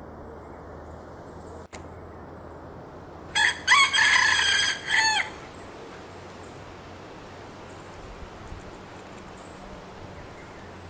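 Red junglefowl cock crowing once, a loud multi-part crow about two seconds long that starts a few seconds in, over a steady faint forest hiss.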